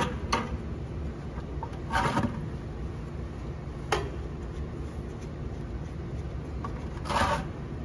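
Wrench working the rear differential drain plug of a Massey Ferguson MF285 tractor: a few sharp metallic clicks and two brief scrapes, over a steady low hum.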